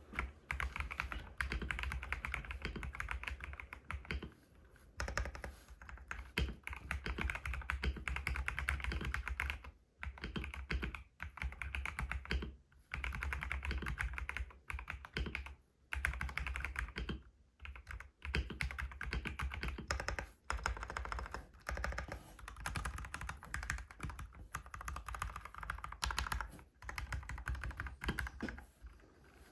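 Typing sound test on a Feker IK75 Ultra mechanical keyboard with Gateron Pro Yellow linear switches: rapid keystrokes in runs of a few seconds, broken by short pauses.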